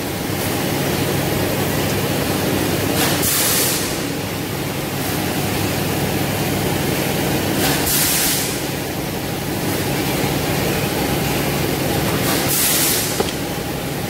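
Steady machinery hum of a factory floor, with a short burst of air hiss about every four and a half seconds and a single sharp click near the end.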